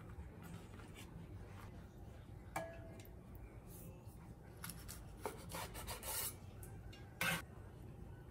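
A rice paper roll being handled and then cut with a knife on a wooden cutting board: a faint rubbing of hands on the wrapper, a small ringing click, then several short rasping scrapes as the blade goes through the crisp vegetable filling, with the loudest scrape near the end.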